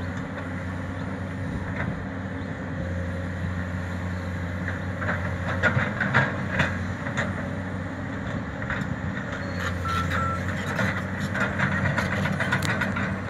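Komatsu PC200 crawler excavator's diesel engine running as it digs. The bucket clanks and scrapes in the dirt about five to seven seconds in and again near the end.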